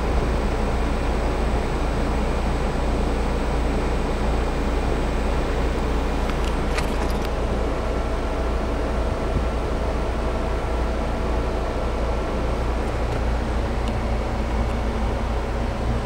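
Outdoor heat pump units running, the nearest a Fujitsu Halcyon DC inverter mini-split condenser: a steady fan rush over a low rumble, with a faint high whine coming in about halfway.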